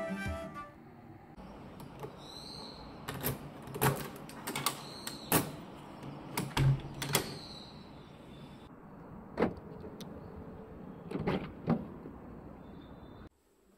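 Sharp clicks and knocks of a front door's metal lever handle and latch being worked, then a car door being handled and opened, a few seconds apart over a quiet outdoor background.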